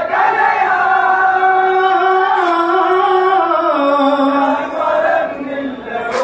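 Singing in an Onamkali folk song: a long drawn-out vowel that steps down in pitch over a few seconds, then a shorter phrase.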